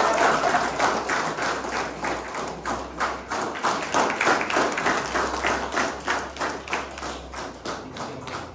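Applause from a group of people clapping by hand, many quick, irregular claps that thin out and get quieter toward the end.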